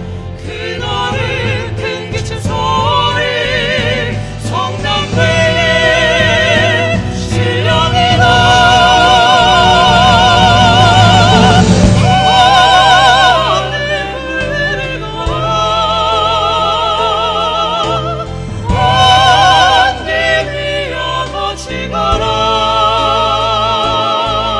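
Small vocal ensemble singing a slow choral piece in several parts, voices held with wide vibrato over a steady low accompaniment, growing loudest in the middle.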